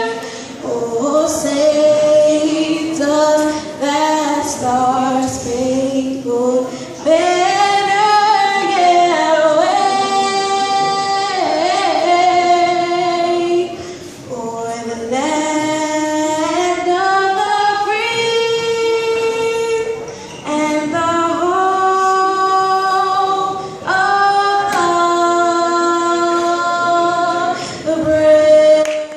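A young woman singing the national anthem solo and unaccompanied into a microphone, amplified through a hall PA, with long held notes and sliding runs between them. She builds to a long held note near the end.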